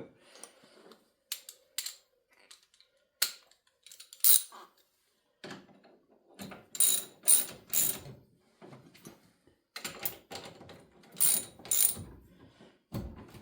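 Metal hand tools clicking and clinking on the brake caliper's mounting bolts as they are fitted and tightened, with short runs of quick clicks like a socket ratchet.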